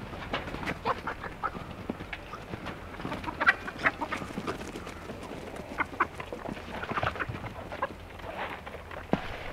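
Chickens clucking, many short calls one after another, the loudest about three and a half seconds in.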